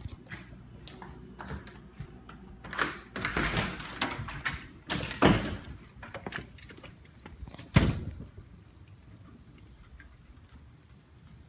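Handling rustle and a run of knocks and thumps as a door is worked on the way out of the house, the loudest a sharp thump about eight seconds in. From about halfway through, a high chirp repeats steadily, about two to three times a second.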